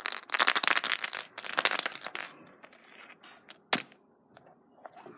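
Hollow plastic surprise eggs clattering and rubbing against one another in a pile for about two seconds. Then scattered light taps and one sharp plastic click near the middle.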